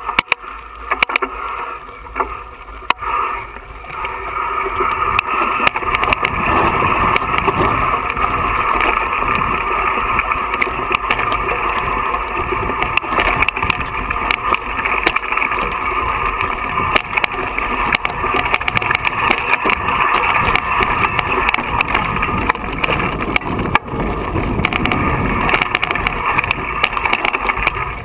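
Mountain bike riding over a loose, rocky trail, heard from a handlebar-mounted camera: a constant rush with rapid rattling and crunching of tyres and bike over stones, getting louder and steadier from about four seconds in.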